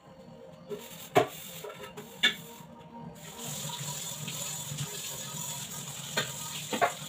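Metal utensils clinking against each other twice, then a kitchen tap running into a steel sink from about three seconds in, a steady rush of water.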